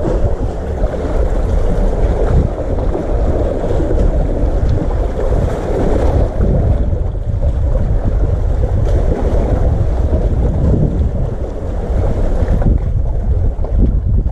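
Seawater surging and washing between concrete breakwater tetrapods, with wind buffeting the microphone in a steady low rumble.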